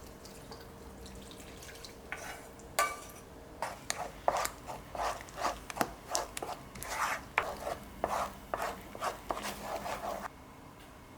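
Kitchen utensil sounds: an irregular run of sharp knocks and scrapes on cookware or a cutting board, stopping suddenly near the end.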